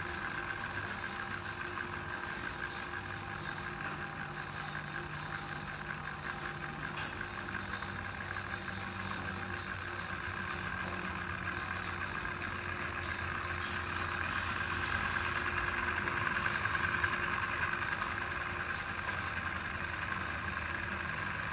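16-cylinder hot-air Stirling engine model running, a steady fast mechanical whirr from its pistons, crank and spinning propeller. It grows a little louder and brighter in the second half as it picks up speed.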